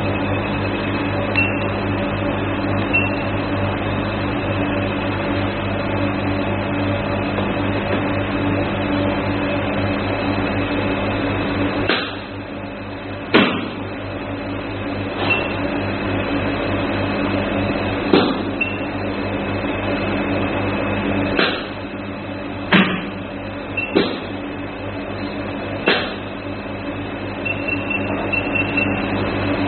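IPL hair-removal machine running with a steady hum and a faint high whine. Partway through the hum drops a little, and about eight sharp clicks follow at irregular intervals.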